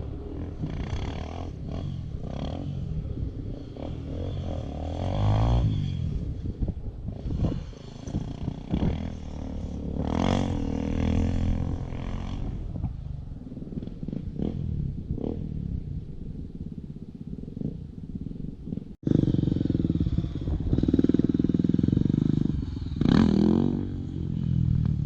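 Dirt bike engines running and revving on a track, the pitch rising and falling with the throttle as the bikes pass. The sound breaks off abruptly a few seconds before the end, and the engine noise comes back louder.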